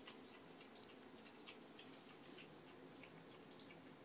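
Faint, irregular light clicks and taps from a baby opossum moving about in a bathtub, most frequent in the first second and a half.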